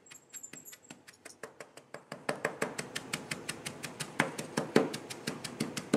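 Hand ramming tool tapping rapidly on damp green sand, packing it into a small wooden flask: a quick run of taps, several a second, getting louder about two seconds in.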